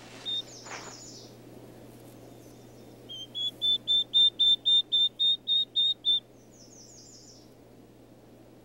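Newly hatched northern bobwhite chicks peeping. In the middle comes a run of about a dozen short, even, high peeps, about four a second, with a few quicker, higher falling chirps near the start and again after it.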